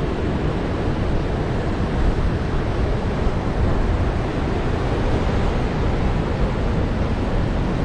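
Steady wind buffeting the microphone over the wash of surf breaking on the beach, a constant rushing noise heaviest in the low end.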